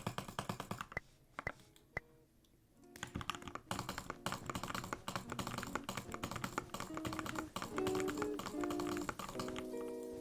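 Fast typing on an Anne Pro 2 mechanical keyboard with lubed switches and a foam mod. The keystrokes break off into a few single clicks and a short lull before the rapid typing resumes.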